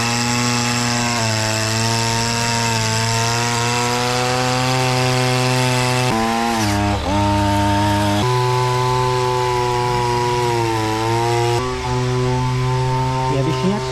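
Petrol brushcutter engine running at high speed, driving a rotary steel wire brush that scrubs weeds from paving-block joints. The pitch sags briefly about seven seconds in, as the engine loads or the throttle eases, then recovers.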